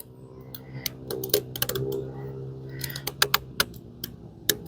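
A folding knife's blade cutting notches into a hardwood stick: a run of sharp, irregular clicks and knocks as the blade bites into the wood.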